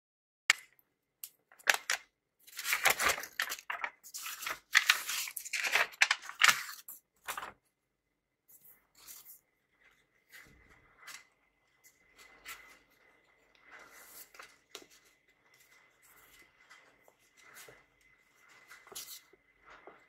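Stiff brown kraft paper envelope rustling and crackling loudly as a packaged book is worked out of it, in a run of rough strokes lasting about seven seconds. After that come softer, scattered sounds of paperback books being handled.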